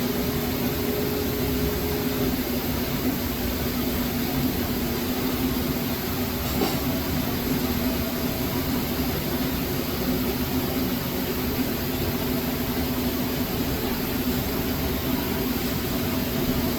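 A machine's motor running with a steady drone and hum. A higher tone in it drops away about two seconds in, and there is a faint click about six and a half seconds in.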